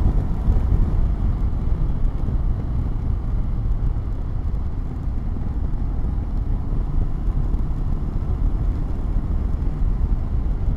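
Wind noise inside a closed-visor motorcycle helmet while riding a Honda CB500X at about 100 km/h behind the stock windscreen with a clip-on extension. It is a steady, heavy low rumble of air with a fluttering level.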